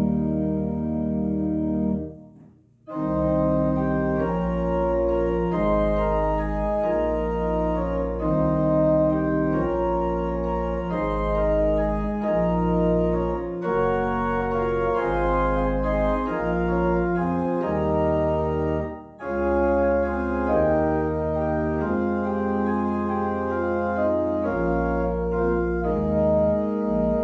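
Church organ playing slow, sustained chords over a deep pedal bass, breaking off briefly about two seconds in and dipping again for a moment about two-thirds of the way through.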